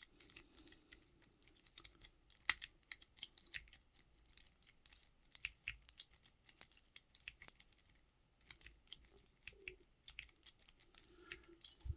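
Lock pick working the pins inside a lock: faint, irregular small metallic clicks and ticks, a few a second, as the pins are picked.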